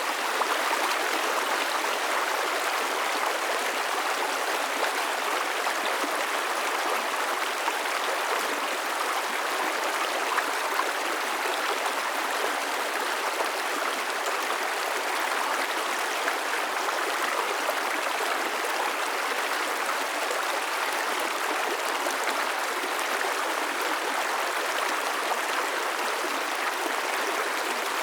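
A river running over rocks: steady rushing and gurgling of flowing water.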